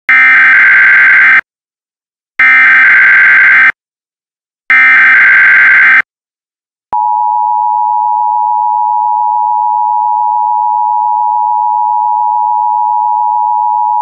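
Emergency Alert System signal: three identical screeching bursts of SAME header data, each just over a second long with short gaps. After a pause, the steady two-tone EAS attention signal starts about seven seconds in.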